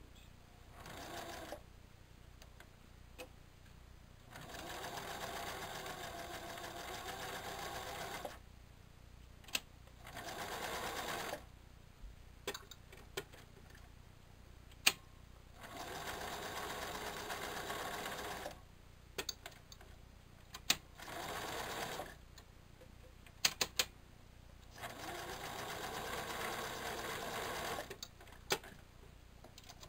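Domestic electric sewing machine stitching buttonholes through a terry-towel band. It runs in six bursts of one to four seconds with pauses between, and light clicks in the pauses.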